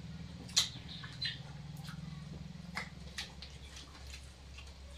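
Eating sounds of people eating rice by hand from steel plates: scattered short clicks and wet smacks, the loudest about half a second in, over a steady low hum.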